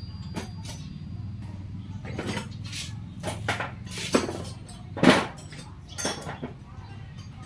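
Irregular metallic clinks and knocks over a low, steady hum, the loudest knock about five seconds in.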